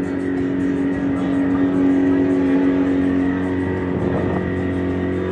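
Catamaran's engine running steadily under way, a constant hum heard on the boat's deck.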